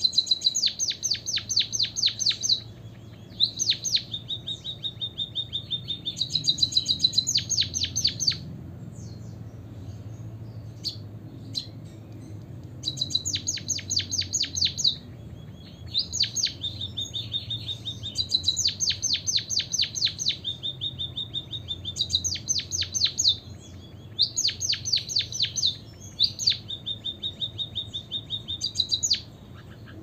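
White-headed munia singing: repeated phrases, each a thin drawn-out whistle followed by a quick run of clicking notes. The phrases come every few seconds, with a pause of a few seconds midway.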